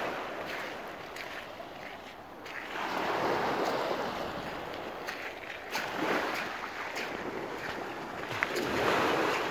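Small waves breaking and washing up a pebbly beach, the surf swelling and fading about every three seconds.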